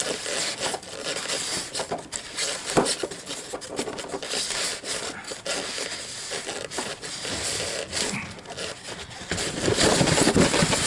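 Cardboard and styrofoam packaging being handled and pulled apart: irregular scraping and rubbing with many small clicks and knocks, busier and louder near the end.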